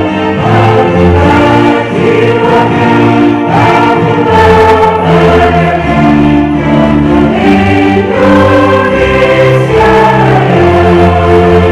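Choir of many voices singing a slow song in long held notes over instrumental accompaniment with a steady bass.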